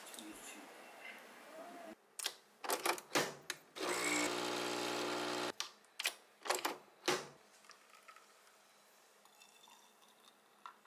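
Capsule coffee machine in use: a quick series of clicks and clacks from the lever and capsule, then the pump buzzing steadily for about two seconds as it brews, then a few more sharp clicks. Faint handling sounds follow.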